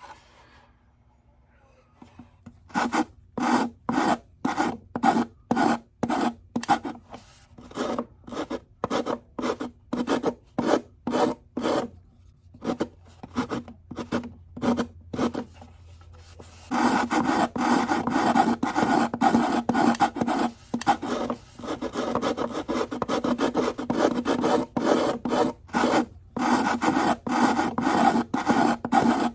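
A hand tool scraping along the edge of a wooden ukulele soundboard glued to a gourd body, trimming its overhang. The strokes come singly, about one and a half a second, then just past halfway turn quick and almost continuous.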